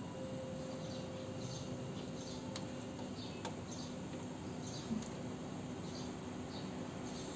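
Small birds chirping now and then over a steady background hiss, with two faint clicks and a soft knock about five seconds in.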